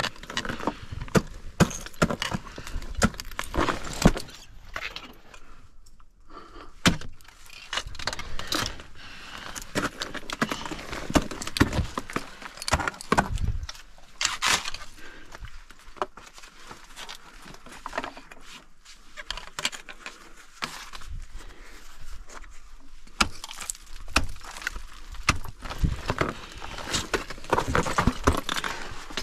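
Metal ice-climbing gear clinking and rattling in irregular sharp knocks, with a quieter stretch in the middle.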